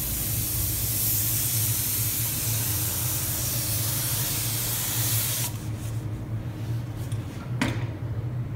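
Hydrographic activator sprayed in a steady hiss across the print film floating on the dip tank, the spray that softens the dried ink so it can wrap the part; the hiss cuts off about five and a half seconds in. A single sharp click follows near the end, over a low steady hum.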